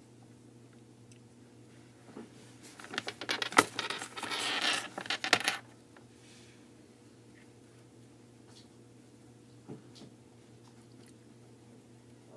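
A burst of light clinking and rattling of small hard objects, lasting about three seconds and starting a few seconds in, with a few faint ticks afterwards.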